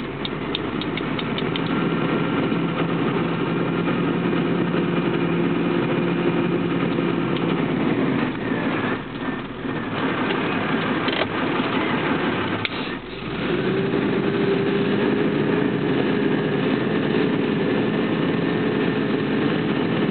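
Engine of a large vehicle heard from inside the cab, running steadily as it drives slowly along a street. The engine sound dips briefly twice, about eight and twelve seconds in, then carries on steady.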